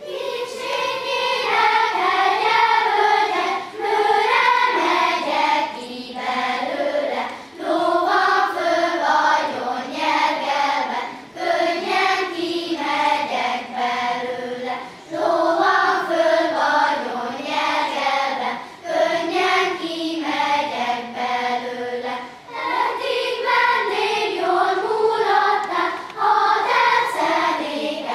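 Children's choir of lower-primary pupils singing a Hungarian song, starting right at the outset and going on in phrases of a few seconds with brief breaths between them.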